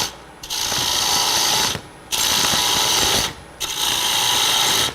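Turning tool cutting a spinning hard maple lid on a wood lathe: three short passes of hissing, shaving cuts, each about a second and a half long with brief pauses between them, as the slope of the lid is roughed down.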